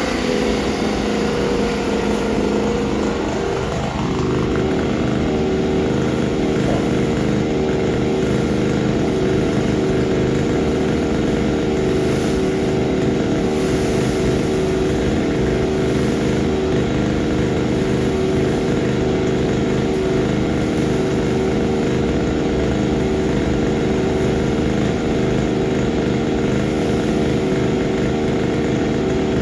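Motorised disinfection fogging machine running with a steady engine drone; a pitch falls in the first few seconds, then the sound holds level.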